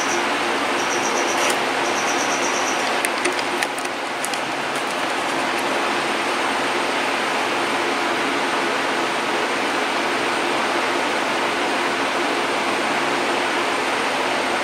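Steady, even rushing background noise. A high pulsed chirping sounds in short bursts during the first three seconds, and a few sharp clicks come around three to four seconds in.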